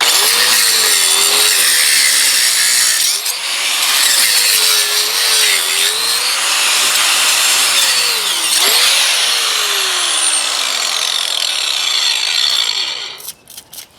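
Angle grinder cutting a wet concrete paver edge. The motor pitch wavers and dips as the blade bites into the concrete. It stops about a second before the end, followed by a few short knocks.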